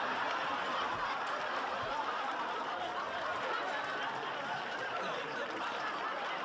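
A large audience laughing in one long, steady wave that eases slightly near the end.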